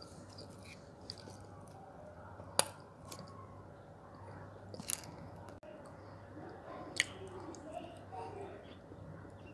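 A person chewing and biting wet brown clay that has been soaked soft with sandy water, so it barely crunches. Three sharp clicks come about two seconds apart.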